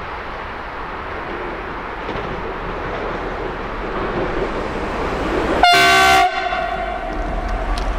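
Light-engine diesel locomotive approaching and passing underneath, its engine growing louder as it nears. It gives one short horn blast of about half a second, the loudest sound, after which a deep rumble rises as it goes beneath.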